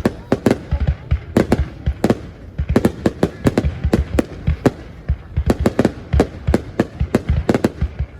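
Aerial fireworks bursting in a continuous barrage, sharp bangs following each other irregularly several times a second.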